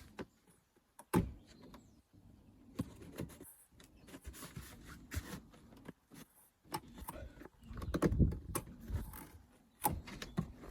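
Tools and plastic trim being handled while working on a car's wiper linkage area: irregular clicks, knocks and rustling, with sharper knocks about a second in and around eight seconds in.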